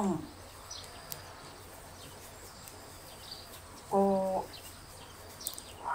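Low, quiet room background with faint high chirps and a few light clicks. About four seconds in comes one short, steady voiced syllable from the crocheter.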